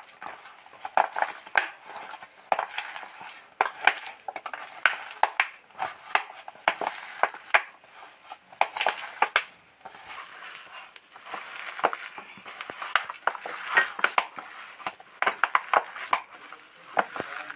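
A hand squeezing and kneading a stiff, waterless pakora mixture of chopped spinach, grated radish and flattened rice in a bowl: irregular squelching and crunching, a few crackles a second.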